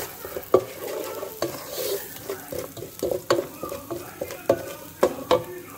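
Wooden spoon stirring and scraping chopped onion, butter and flour in a nonstick pot, with irregular sharp knocks of the spoon against the pot over a light sizzle of frying: the flour being toasted with the onion and butter.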